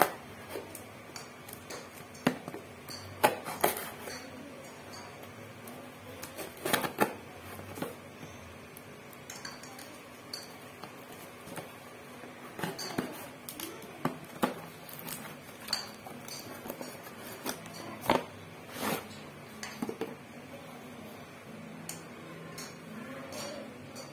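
A small cardboard box being cut and pried open by hand with a small blade, with irregular scrapes, clicks and taps of cardboard and tape.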